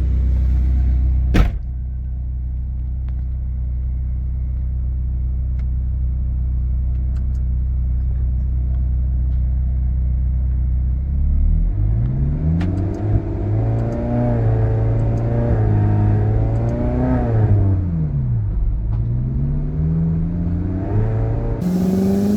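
Ferrari California V8 running with the car up on a lift: a steady idle with a single sharp click about a second in, then the engine revs up, holds, drops back down, and revs up and falls again near the end. The car is being driven in gear off the ground to reproduce a crunch on deceleration from its Getrag 7-speed dual-clutch gearbox.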